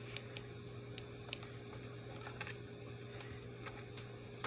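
Faint, scattered light clicks and soft rustles of greeting cards and their packaging being handled and shuffled, over a steady low electrical hum.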